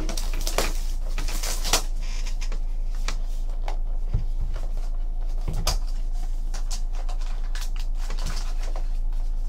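Plastic shrink wrap being torn off a trading-card box, then the cardboard box being opened: scattered crinkles and clicks over a steady low hum.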